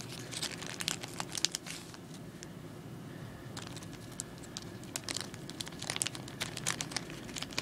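Clear plastic zip-lock bag crinkling as it is handled, in bursts of sharp crackles: busy for the first two seconds, sparser for a moment, then busy again from about three and a half seconds in.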